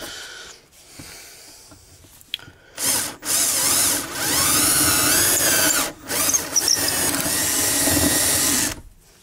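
Electric drill boring holes in wood, running in several goes: a short burst about three seconds in, then longer runs broken by brief stops, its motor pitch wavering, before it stops near the end. The holes are being re-drilled at a slight angle to avoid earlier holes.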